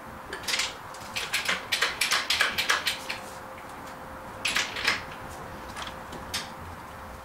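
Hand tools clicking and clinking against metal on an engine subframe: a quick run of sharp clicks for about two seconds, then a short cluster a little later and a single click near the end.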